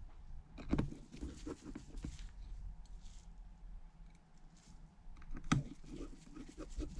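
Small clicks, taps and scratches of a precision screwdriver and gloved fingers driving the tiny screws of the earpiece speaker's metal plate on an iPhone SE (2nd generation). Two sharper taps stand out, about a second in and about five and a half seconds in.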